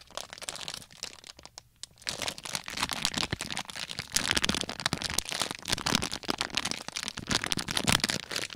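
Plastic Haribo gummy-bear bag crinkling close to the microphone as it is handled and pulled open at the top. The crackling is faint for the first couple of seconds, then dense and louder.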